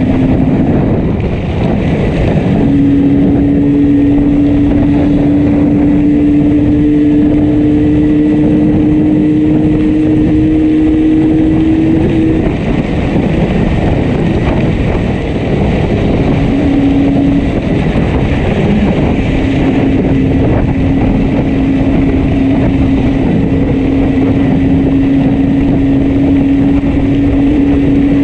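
Yamaha RD350 two-stroke twin running down the road on a badly misfiring cylinder, with wind rush. The engine note climbs slowly, drops away about twelve seconds in, then holds steady.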